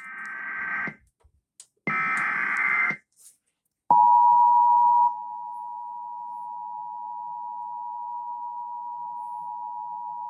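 Emergency Alert System signal heralding a severe thunderstorm warning: two roughly one-second bursts of SAME digital header data, then, about four seconds in, the steady two-tone attention signal, loud for about a second and then holding at a lower level.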